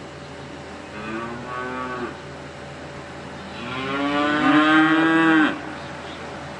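Cow mooing twice: a short moo about a second in, then a longer, louder moo that rises in pitch and holds before ending abruptly.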